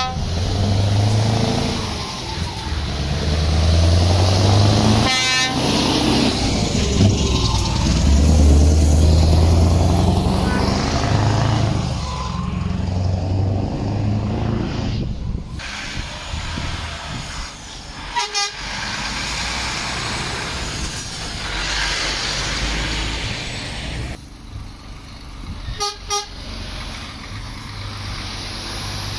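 Lorries drive past with their diesel engines running, and their drivers sound the horns in short toots: one about five seconds in, another around eighteen seconds, and a double toot near twenty-six seconds.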